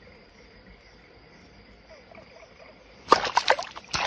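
Faint steady insect chirring, then about three seconds in a sudden burst of loud splashing as a hand plunges into shallow ditch water and grabs an eel, which thrashes as it is pulled out.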